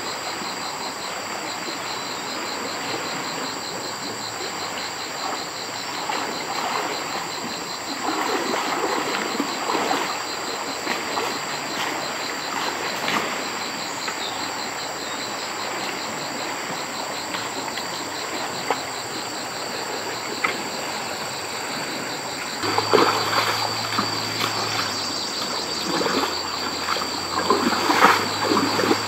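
Water splashing and trickling, with louder, more frequent splashes in the last several seconds, over steady high-pitched insect chirping.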